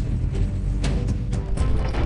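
Background music with a heavy low drum-like pulse and sustained notes.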